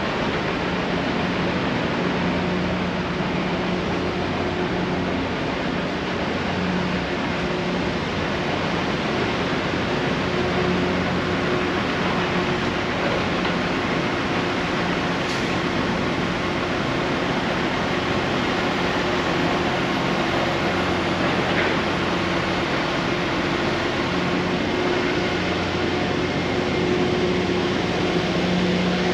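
Steady city construction-site and street noise: traffic running past with a constant low machine hum under it.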